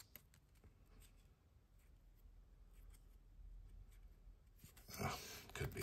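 Faint scraping and rustling of trading cards and a pack being handled, with a couple of louder soft knocks near the end.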